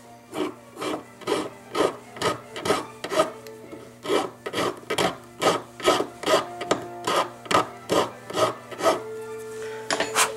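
Hand file rasping on the outside of a metal bezel setting in quick, even strokes, about two a second, thinning the top edge of the bezel so a cabochon can be set in it; the strokes stop near the end.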